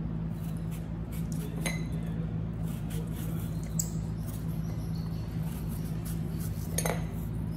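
A small knife cutting pieces from an apple, with a few faint clicks as pieces drop onto small ceramic saucers, over a steady low hum.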